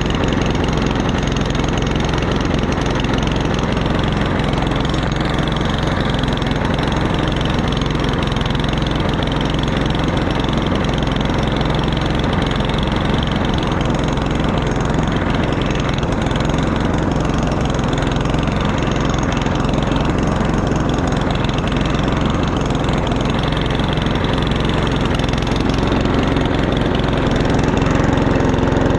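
Four-stroke push lawn mower engine running steadily, its air filter soaked with oil from being overfilled, which the owner says is affecting the way it runs. It gets slightly louder near the end.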